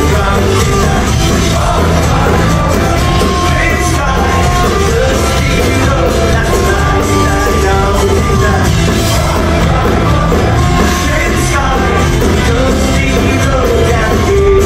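Folk-punk band playing live at full volume: electric guitars, bass, drums and fiddle.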